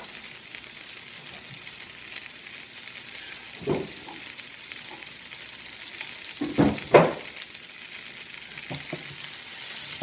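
Butter and gnocchi sizzling steadily in a hot nonstick pan on a gas burner as a fresh tablespoon of butter melts in to brown. A few knocks sound over the sizzle, the loudest two about seven seconds in.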